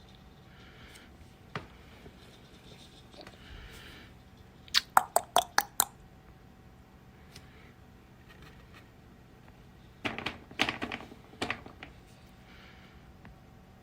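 Two quick runs of sharp clicks or taps: about seven within a second a little before the middle, and another cluster near the end.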